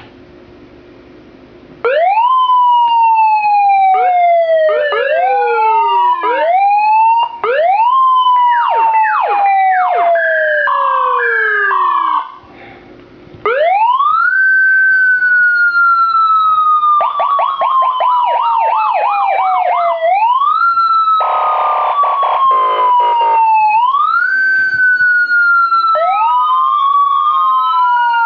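Electronic police siren module cycling through its tones: rising-then-falling wails, quick yelps, a two-tone hi-lo, a fast warble and a buzzing horn tone. It starts about two seconds in and cuts out for about a second near the middle.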